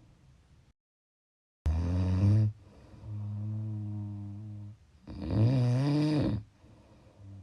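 Snoring: a loud snore about two seconds in, a longer, softer one that trails off, then another loud one with a rise and fall in pitch around five seconds in. Before the first snore the sound drops out completely for about a second.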